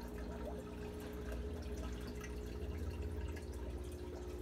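Aquarium bubbler: air bubbles from an air stone rising and popping at the water surface with irregular small drips and ticks, over a steady low hum.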